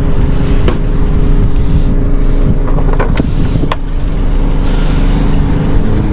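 A steady, loud, low motor-like drone with a few sharp clicks, one about a second in and three close together around three to four seconds in.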